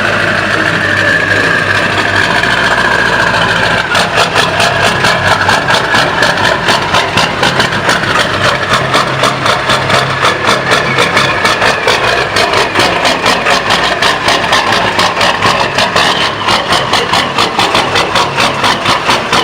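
A car engine running. About four seconds in, its steady sound turns into a rapid, even pulsing of several beats a second.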